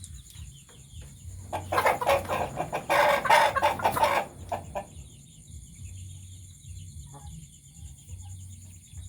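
Chickens clucking and squawking, with a loud flurry lasting about two and a half seconds starting around a second and a half in, then only scattered quieter calls. A low pulsing hum and a steady high-pitched whine sit underneath.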